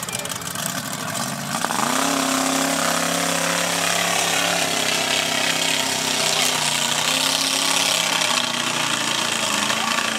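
Lifted mud-bog pickup's engine revving up sharply about two seconds in, then held at high revs as the truck churns through the mud pit.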